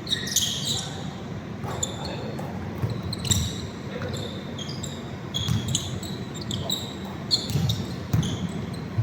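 Basketball game play: sneakers squeaking sharply on the court many times over, and the ball bouncing, over a steady murmur of voices.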